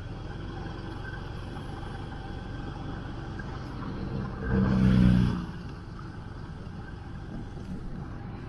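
Steady traffic rumble, with a motor vehicle passing close by about five seconds in, its engine swelling loudly and then fading.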